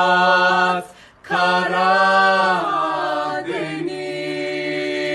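Singing voice holding long wordless notes at the end of a Turkish Black Sea–style song. It breaks briefly about a second in, then sustains again.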